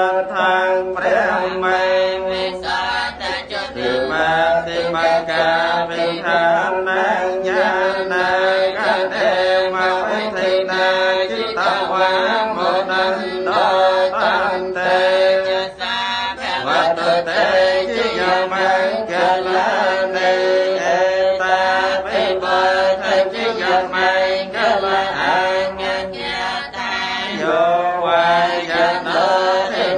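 Buddhist devotional chanting: many voices reciting together in a continuous, steady chant with held tones.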